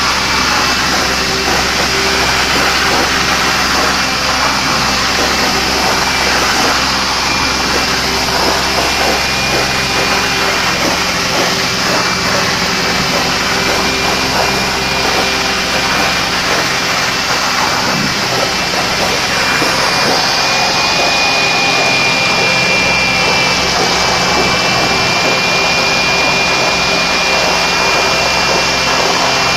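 Tile-and-grout extraction machine running with its spinner cleaning tool: a steady, loud vacuum rush with spray hiss and a thin high whine.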